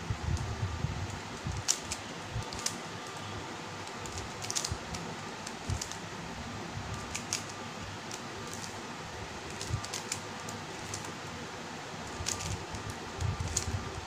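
A 3x3 Rubik's cube being turned quickly by hand, the same move sequence run over and over to solve it: scattered sharp clicks of the plastic layers snapping round, over a steady background hiss.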